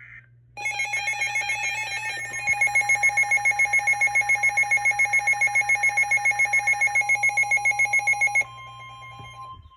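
Emergency alert alarm: harsh electronic beeping that pulses about seven times a second. It starts about half a second in and cuts off suddenly near the end, leaving a quieter steady tone. A low hum runs underneath.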